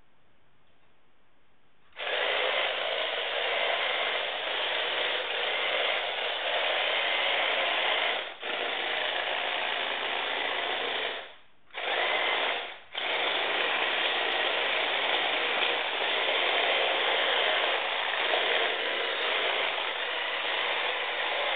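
LEGO Technic tracked vehicle driving, its electric motors and gear train running with a steady grinding whirr that starts about two seconds in. It stops for a moment a few times past the middle as the vehicle changes direction.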